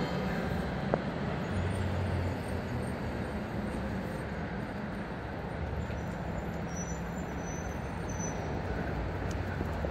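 Steady city road traffic noise with a low rumble, and a single sharp click about a second in.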